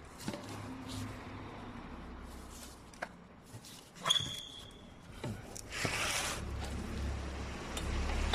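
Metal motorcycle parts being handled: scattered light clicks and knocks, a sharp clink with a short ring about four seconds in, and a brief rustle near six seconds.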